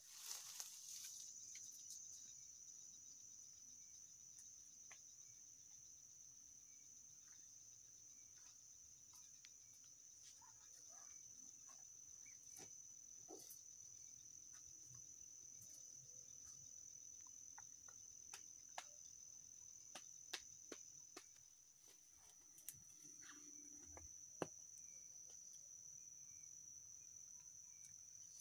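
Faint, steady high-pitched insect song, one unbroken note, with scattered sharp snaps and clicks of footsteps through dry undergrowth, a few louder ones near the end.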